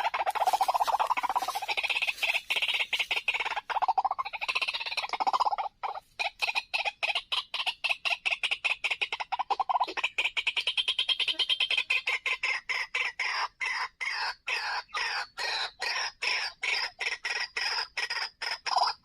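White-breasted waterhen (ruak-ruak) calling: a long run of rapid, repeated harsh notes. The notes are dense and overlapping at first, then settle after about six seconds into an even pulse of about four a second.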